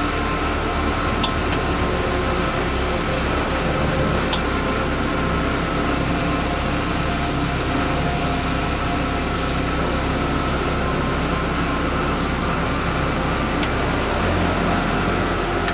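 A steady machine hum with several constant tones, its low end shifting about 14 seconds in, and a few faint clicks.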